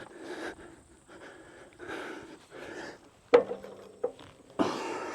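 A man breathing hard in short bursts while straining to lever a heavy log. There is a sharp knock about two-thirds of the way through, a lighter one just after, and a louder heave near the end.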